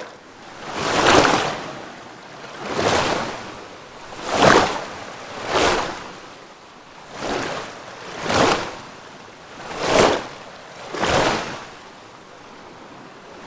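Water washing in waves: eight surges of rushing water, each swelling and falling away over about a second, coming every second and a half or so.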